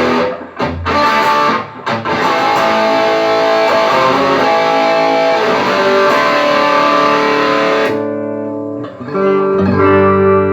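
Electric guitar played through a Mesa Boogie JP-2C tube amplifier. It opens with a few quick picked notes and then moves to held, saturated chords. About eight seconds in it changes to a softer, darker held chord.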